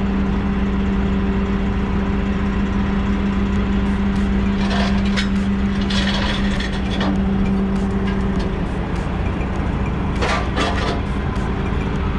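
A vehicle engine running with a steady low hum that stops about eight and a half seconds in. Several short bursts of noise come over it, the loudest near the end.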